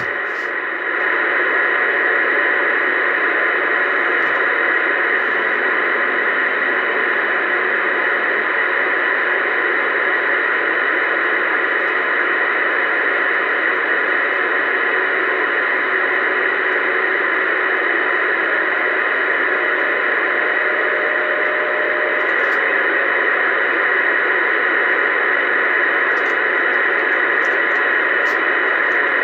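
Steady static hiss from a Uniden Bearcat 980SSB CB radio's speaker on AM, with the squelch open and no station talking.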